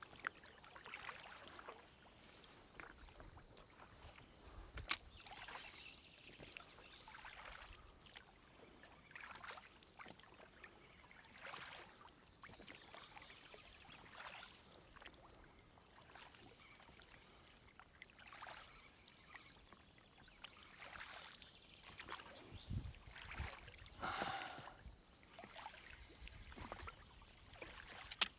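Oars dipping and pulling through the water of a small boat being rowed: faint splashes and swishes repeating about every second, with an occasional sharp knock.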